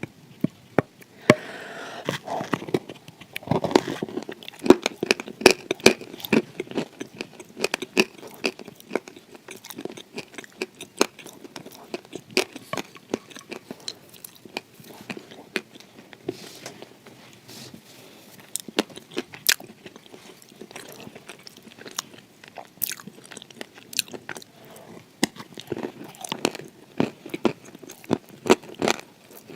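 Close-miked biting and chewing of crunchy edible clay: a steady run of sharp, crackling crunches, densest in the first few seconds and again near the end.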